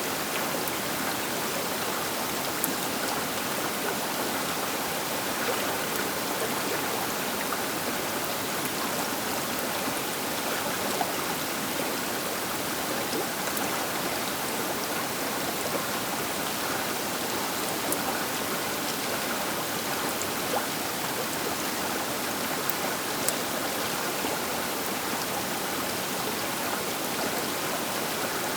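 The Baker River flowing: a steady, even rush of water, with a few faint sharp ticks from small splashes.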